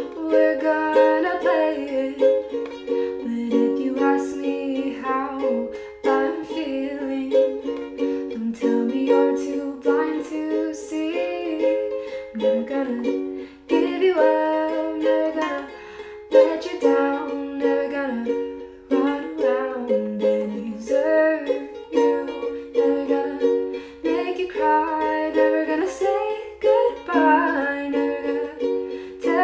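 A ukulele strummed in chords with a man singing a melody over it.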